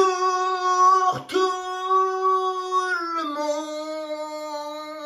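A voice singing long held notes, with a quick swoop into the note about a second in and a step down in pitch about three seconds in.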